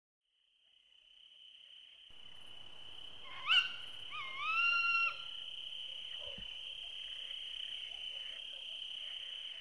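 Night ambience fading in: a steady high insect drone, like a cricket chorus. About three and a half seconds in come two short whistled calls from a night animal, the second rising and then held for about a second.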